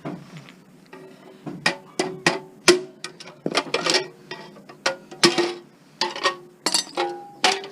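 Screwdriver prying and knocking on a metal fixture: a series of irregular sharp clicks and clanks, several of them ringing briefly, as parts are popped off.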